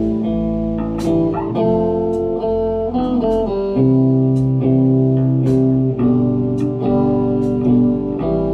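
Amplified electric guitars playing sustained chords together, each new chord struck and left ringing, with low notes underneath.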